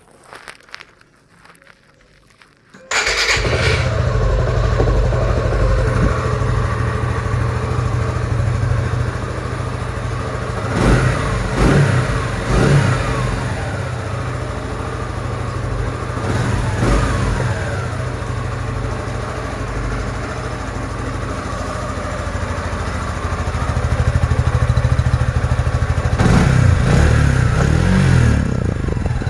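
Suzuki Gixxer SF single-cylinder motorcycle engine on its stock exhaust: a few faint clicks, then it starts about three seconds in and idles. It is blipped a few times in the middle, then runs louder with several quick revs near the end.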